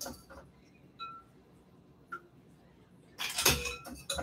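Wire spider strainer clinking against a glass bowl of ice water as peas are scooped out among the ice cubes: two light ringing clinks, then a louder clatter of metal and ice on glass near the end.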